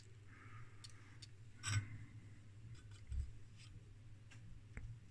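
Faint handling noise as a circuit board is picked up and held by hand: a few light clicks, a sharper click about a second and a half in and a dull bump about three seconds in, over a low steady hum.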